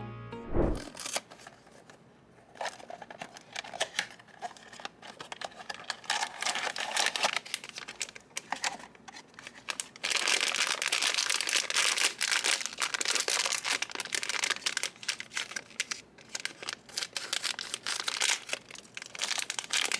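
Blind-box packaging being handled and opened: crinkling and tearing, with a sharp click just under a second in. The crinkling grows louder and denser from about ten seconds in.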